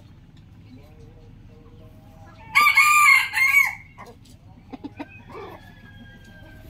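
A rooster crows once in the middle, a single loud crow of just over a second whose pitch bends up and down across a few syllables. Scattered short clicks and faint bird chirps sound around it.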